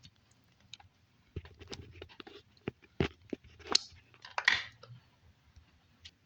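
Hand work on a bicycle's hydraulic disc brake caliper: a screwdriver and brake pads clicking and scraping against the caliper as the pistons are pushed back and the pads worked loose. The sound is a scatter of light metal clicks, with sharper clicks about three and almost four seconds in and a short scrape a little after.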